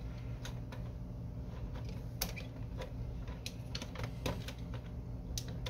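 Light, irregular plastic clicks and taps as hands move the print carriage and handle parts inside a partly disassembled Canon Pixma MG5220 inkjet printer, with a sharper click near the end. A steady low hum runs underneath.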